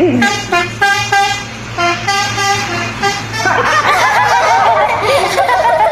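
Bus telolet horn playing a quick tune of short, stepped notes over a steady engine hum. From about three and a half seconds in, a crowd shouts and cheers over it.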